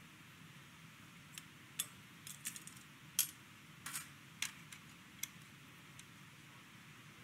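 Light metal clinks and taps, about a dozen spread over a few seconds: small stainless steel ring cutters being picked up and dropped into a stainless steel tray.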